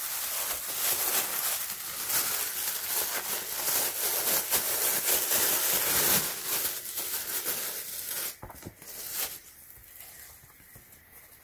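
Thin plastic shopping bag crinkling and rustling as a pair of sneakers is pulled out of it. After about eight seconds it dies down to a few soft clicks of handling.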